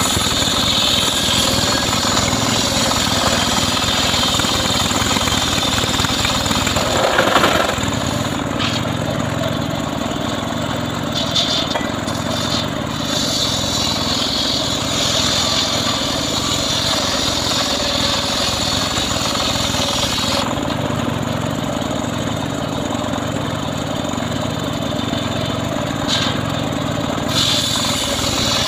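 Engine of a homemade srekel log saw running steadily under load, with a brief louder surge about seven seconds in.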